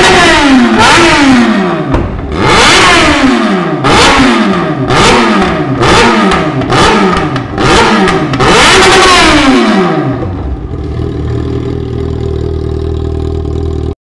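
Yamaha XJ6's inline-four engine through an open exhaust, held at high revs at the rev limiter at the start, then blipped hard about eight times, each rev snapping up and falling away. It settles into a steady idle for the last few seconds.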